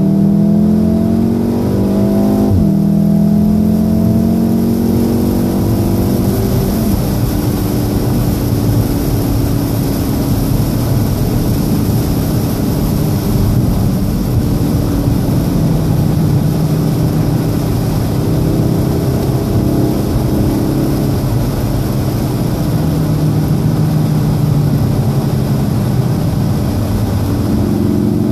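2014 VW Golf VII R's turbocharged 2.0-litre four-cylinder heard from inside the cabin under hard acceleration. The revs climb and drop sharply at two upshifts, about two and a half seconds in and again about four seconds later, then hold higher and drift as the car runs fast, climbing again near the end. A steady hiss of tyres on the soaked track runs underneath.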